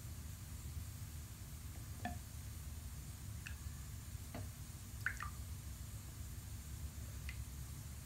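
Bubbles popping in the foam of a fizzing bath bomb in bath water: about six faint, scattered drip-like plinks over a low steady hum.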